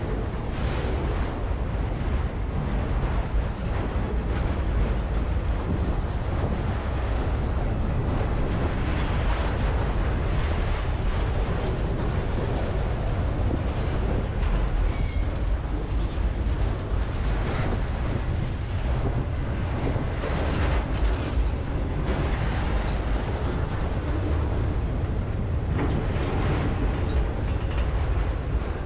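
Freight train of autorack cars rolling past close by: a steady low rumble of steel wheels on the rails, with scattered clicks and knocks from the wheels and cars.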